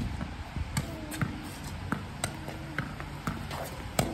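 Tennis ball being hit with a racket against a stone wall: a series of sharp knocks from the ball off the strings and the wall, the loudest about four seconds in.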